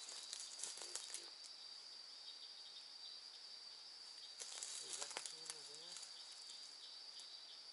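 Steady high-pitched chorus of night insects. Faint rustling and crackling of brush comes a little after the start and again about four and a half seconds in.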